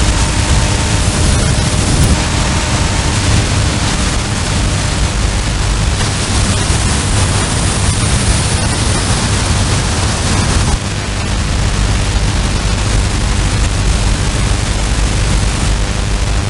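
Shortwave software-defined radio receiver's audio output: a loud, steady hiss of man-made radio interference as the tuning steps up through about 8.4 to 9.3 MHz. The noise dips and changes character suddenly about eleven seconds in, then carries on.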